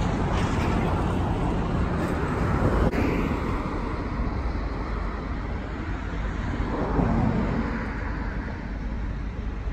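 Road traffic on a city street: a steady rush of passing cars, swelling as a vehicle goes by about seven seconds in.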